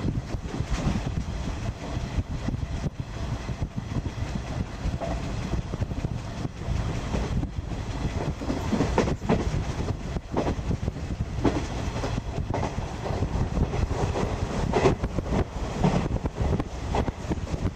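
JNR 50-series passenger coach rolling along the line, heard from inside: a steady rumble with repeated knocks of the wheels over the rail joints.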